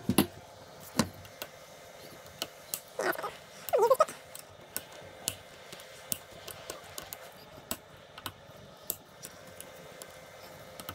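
Small metal clicks and taps of a pick or screwdriver working at the snap ring holding the seal in an aluminium motorcycle fork lower leg. Two short squeaks about three and four seconds in.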